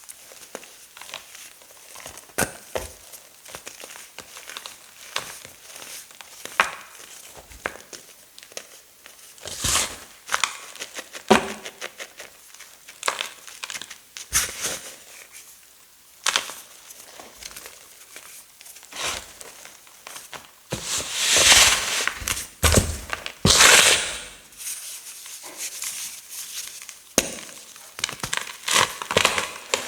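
Blocks of gym chalk mixed with glitter being crushed by hand: a run of dry crunching and crackling, with a longer, louder spell of crushing about two-thirds of the way in.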